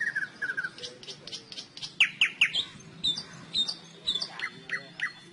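Songbirds chirping: a rapid series of short, downward-sweeping chirps, loudest in a quick cluster of three about two seconds in.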